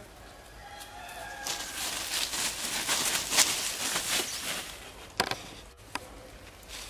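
Leafy undergrowth and twigs rustling and crackling, loudest through the middle, with a single sharp snap about five seconds in. A few short animal calls come just before the rustling starts.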